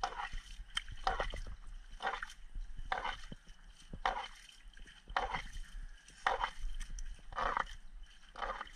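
Wet splashing and slapping about once a second as freshly caught fish are handled in a shallow puddle of water, with small knocks in between.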